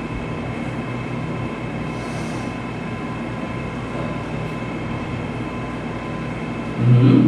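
Steady room background noise: an even hiss with a low, constant hum and faint steady tones, the drone of a machine running in the room. A short voice sound breaks in just before the end.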